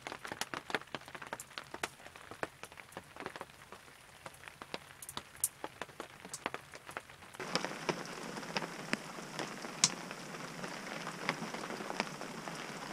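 Rain: single drops tapping on the cabin, then, after about seven seconds, a steady hiss of rainfall with scattered drips.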